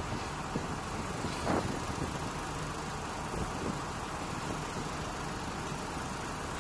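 Steady engine idling under wind noise on a carrier flight deck, with a brief louder swish about a second and a half in.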